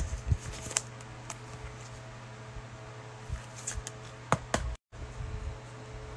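Quiet room tone with a steady low hum and a few faint clicks, broken about five seconds in by a sudden brief dropout to silence where the recording was paused and restarted.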